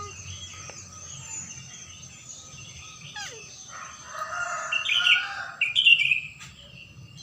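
Birds chirping, with a louder, closer run of chirps about four to six seconds in, over a steady high-pitched insect drone.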